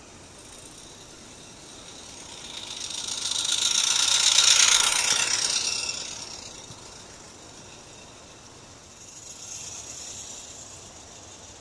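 Small Roundhouse Katie live-steam garden-railway locomotive running past, its steam hissing and its running gear rattling as it grows louder, peaks about four and a half seconds in, then fades. A fainter swell of the same noise comes near the end.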